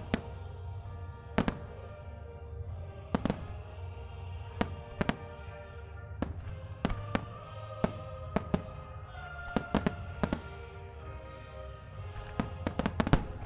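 Fireworks bursting in a starmine display, sharp bangs at irregular intervals that bunch into a rapid cluster near the end, over music played for the show.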